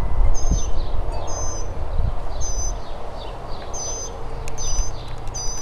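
A bird calling over and over, one short high note about every second, over a steady low rumble on the microphone.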